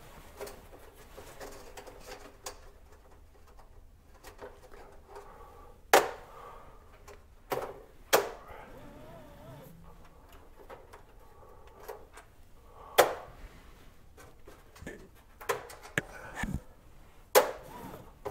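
Scattered sharp knocks and clunks as an engraved sheet of 3 mm birch plywood is handled on a laser engraver's metal honeycomb bed. The loudest come about six, eight, thirteen and seventeen seconds in.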